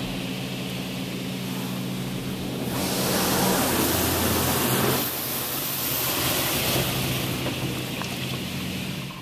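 Laserwash touchless car wash spraying water over the car, heard from inside the cabin: a steady hiss of spray over a low machine hum, loudest from about three to five seconds in. Both stop just at the end.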